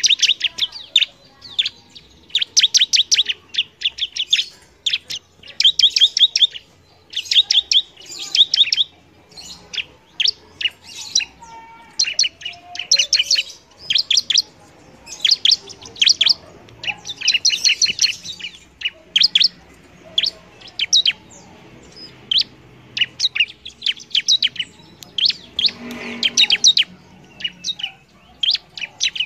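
Bar-winged prinia (ciblek) singing energetically: rapid runs of sharp, high chirps in bursts of a second or two, repeated again and again with short pauses.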